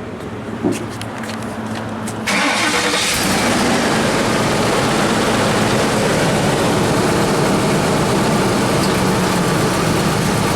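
2006 Ford Explorer engine starting after a few clicks and a knock, then idling steadily on its fresh oil. It is run so the oil pan and filter can be checked for leaks.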